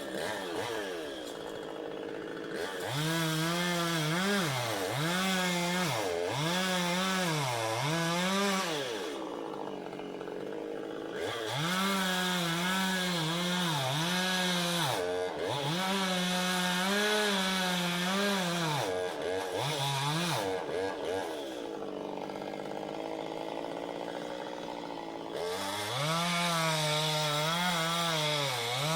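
Petrol chainsaw running, revving up and falling back in quick swells again and again, with steadier idle-level stretches about ten seconds in and again a little past twenty seconds.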